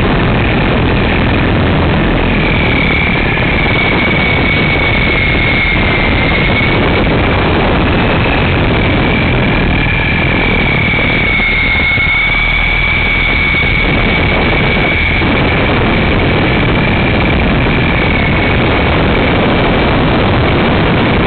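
Syma S033G RC helicopter's electric motors and rotors, picked up at close range by a camera mounted on its front: a loud, steady whine over rotor noise, its pitch wandering slightly as the helicopter flies.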